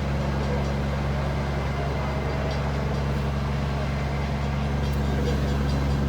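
Large engine idling with a steady low hum.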